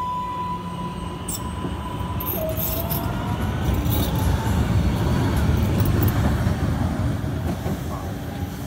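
MBTA Green Line Type 8 light-rail train pulling out past the platform: a low rumble of wheels on rail builds to its loudest about four to six seconds in and then eases, with a motor whine rising in pitch from about two seconds in. A steady high tone stops about two seconds in, and a few faint clicks come from the wheels.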